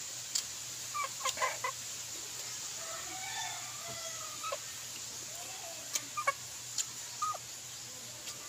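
Chickens clucking in short, scattered calls, over sharp lip-smacking and chewing clicks from eating by hand.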